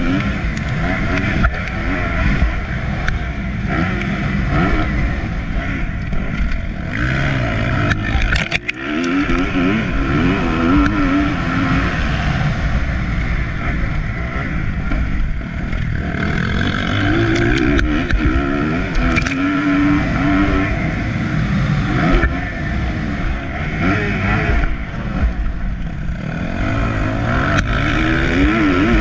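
Motocross dirt bike engine heard close up from an onboard camera, revving up and falling back again and again as it is ridden hard round the track. The throttle is briefly shut off about eight and a half seconds in.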